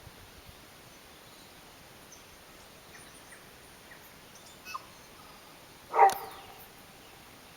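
A single short, loud animal call about six seconds in, with a fainter, briefer sound a little over a second before it, over a quiet background.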